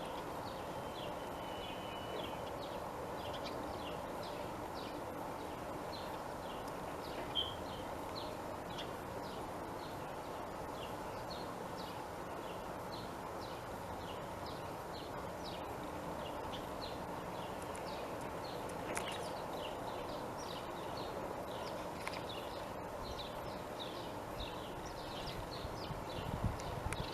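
Small birds chirping over and over in short high notes, a few a second, over a steady background hum.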